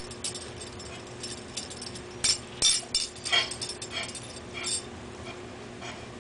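Metal spoon clinking and scraping on a tile floor as two cats lick soft food off it, with a cluster of sharp clinks between about two and three and a half seconds in.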